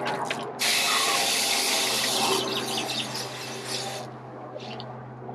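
Garden hose spray nozzle spraying water for about three and a half seconds, starting abruptly and cutting off about four seconds in, used to rinse the soaked terracotta tiles.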